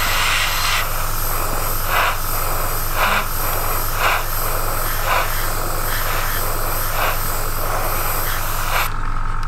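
Airbrush compressor running with a steady low hum while a gravity-feed airbrush hisses, spraying a light dusty coat of paint in short pulses roughly once a second. The hiss cuts out near the end.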